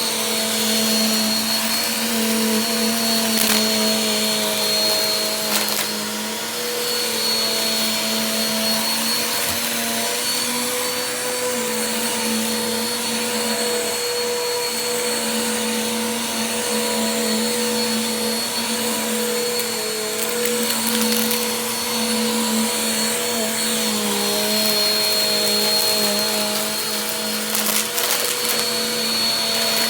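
Vacuum cleaner running continuously: a steady motor hum with a thin high whine on top, its pitch wavering slightly now and then.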